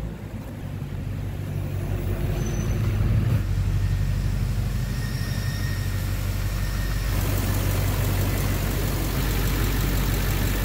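Duramax LMM 6.6-litre V8 turbodiesel running with a knock, described as "so loud now". The knock is still there after a new torque converter and billet flexplate were fitted; the owner is chasing injector knock or a cracked flexplate as the cause.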